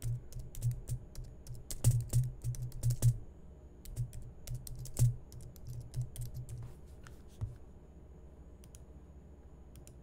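Typing on a computer keyboard: irregular key clicks with dull thuds, dense for the first few seconds, then thinning out and stopping about seven and a half seconds in.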